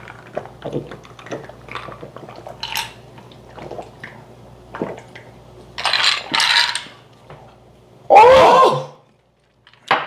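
Small glass clinks and knocks as people drink from glasses of fizzy soda water mixed with red vinegar, then two breathy exhalations and, near the end, a loud drawn-out voiced 'ahh' after the drink, which cuts off suddenly.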